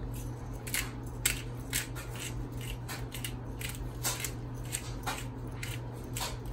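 Salt and pepper grinders twisted by hand, grinding in a quick run of dry, crackling strokes, two or three a second.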